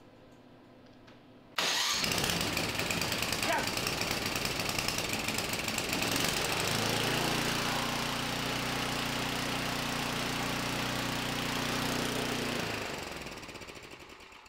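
Tecumseh 10 HP snowblower engine, choke on and freshly fitted with a replacement carburetor, catching on its electric starter about a second and a half in. It runs unevenly for a few seconds, then settles into a steady running note, and winds down to a stop near the end.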